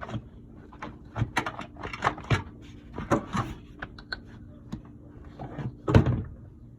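Stock air intake parts being pulled free and handled under the hood: a string of irregular knocks and clicks, with one louder knock about six seconds in.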